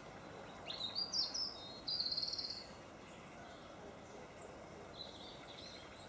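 A small songbird sings one short, high phrase about a second in, ending in a fast trill, and gives a few faint high chirps near the end, over a steady background hiss.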